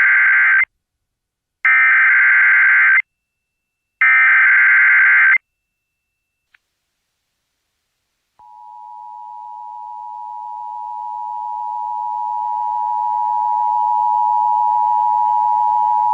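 Emergency Alert System alert tones: three harsh, buzzy bursts of SAME header data, each about a second and a half with a second's gap between, then after a pause the EAS two-tone attention signal (853 and 960 Hz). The attention signal holds steady in pitch and grows louder over its first six seconds.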